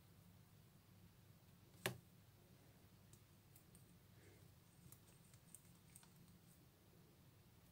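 Near silence over a low steady hum, broken by faint handling sounds of crocheting with a fine hook and thread: one sharp click about two seconds in, then a few faint ticks.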